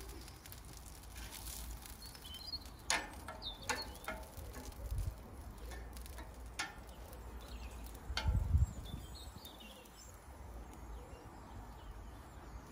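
Metal barbecue tongs clicking against the grill grate as sausages are turned on a gas barbecue: several sharp, separate clicks, with a low thump about eight seconds in. Birds chirp faintly in the background.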